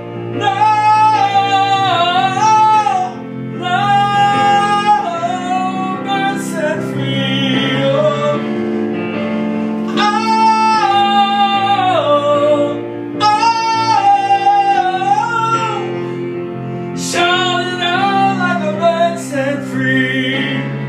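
A song: a woman's voice holding long notes that slide between pitches, without clear words, over steady instrumental accompaniment.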